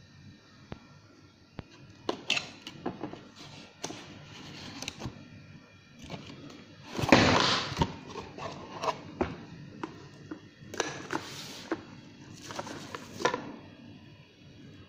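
Unboxing handling: a cardboard box knocked and opened, with bubble-wrap packing rustling. A string of light knocks leads into a loud rustle about seven seconds in, and two shorter rustles come near the end.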